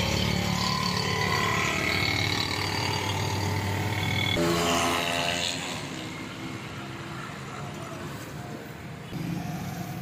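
Street traffic: a motor vehicle's engine running close by, loudest in the first half, with a pitched tone around four seconds in. It then passes off to lighter background traffic noise.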